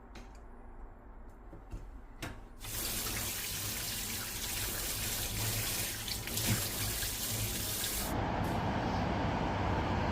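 Kitchen tap running into the sink, starting about three seconds in after a couple of light clicks; near the end the stream's sound turns lower and duller.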